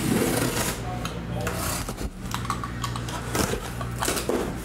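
Cardboard scraping and rubbing as tightly packed card boxes are worked against the walls of a cardboard shipping case, with a few light knocks of handling.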